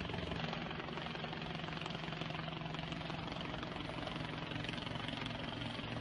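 A steady mechanical drone with a fast low throb under a constant hiss.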